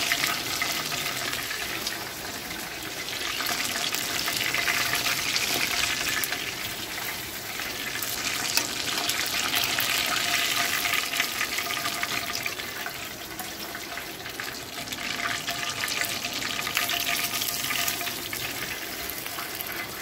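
Chicken pieces sizzling and crackling in hot frying oil in an enamelled cast-iron pot, a dense steady hiss that swells and eases as the pieces are moved and lifted out.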